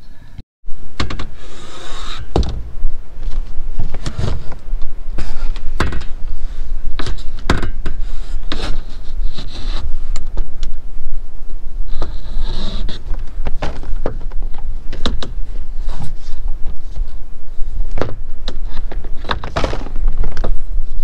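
Wind rumbling on the microphone, with repeated knocks and clunks as a framed solar panel and its plastic mounting brackets are handled on a camper van's roof.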